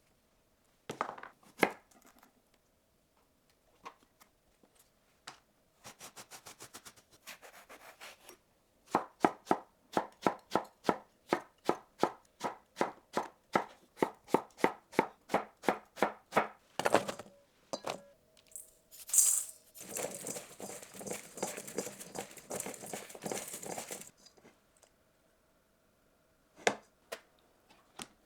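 Kitchen knife chopping on a cutting board in a steady rhythm, about two to three cuts a second, after a quick run of lighter strokes. A stretch of hissing rustle and a couple of stray knocks follow near the end.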